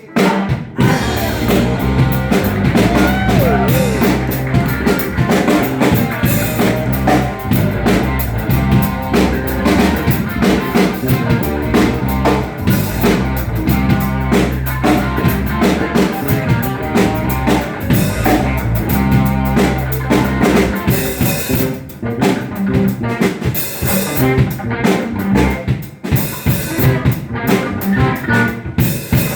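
Live band playing an instrumental funk tune: drum kit, electric guitar and a repeating bass line, with the guitar bending notes about three seconds in.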